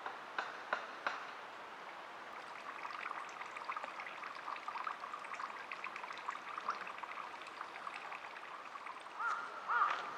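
Birds calling outdoors: a busy chatter of short notes through the middle, then a few louder, arching calls repeated near the end. A few sharp clicks sound in the first second.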